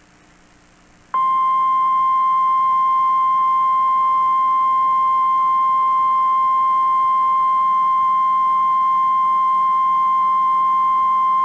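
A single steady alert tone of about 1 kHz: the National Weather Service's 1050 Hz warning alarm tone. It starts about a second in, holds unchanged for about ten seconds, then cuts off abruptly. It signals that a tornado warning is about to be broadcast.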